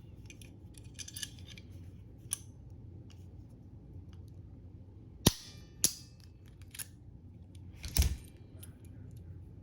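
Steel parts of a taken-apart laminated warded lock being handled: scattered light metal clicks and clinks, then three sharper clacks a little past halfway and near the end, the second ringing briefly.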